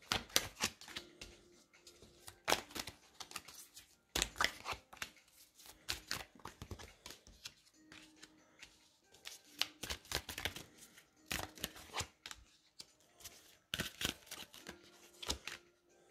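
A deck of tarot cards being shuffled by hand and then dealt one by one onto a cloth-covered table: bursts of crisp card flicks and slaps, coming in clusters with short pauses between.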